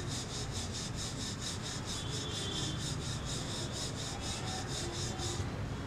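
Wooden rolling pin rolled back and forth over a sheet of corn-and-wheat-flour dough on a stone rolling board, making quick, even rubbing strokes about four a second that stop shortly before the end.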